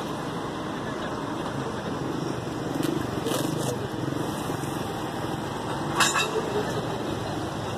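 Roadside street ambience: steady traffic noise with indistinct voices, and a sharp knock about six seconds in.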